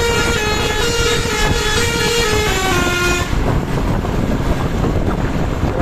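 A bus's 'basuri' telolet horn playing a tune of stepped musical notes, which stops about three seconds in, leaving only a steady traffic rumble.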